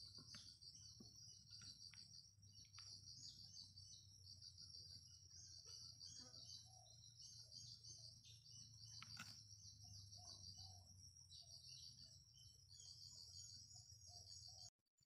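Faint, steady high-pitched chirring of insects, pulsing without a break, over a low hum, with one soft click about nine seconds in. The sound cuts off abruptly near the end.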